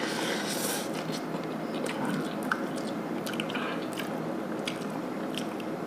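A person eating a mouthful of instant noodles: chewing with many small wet mouth clicks, after drawing the noodles in during the first second.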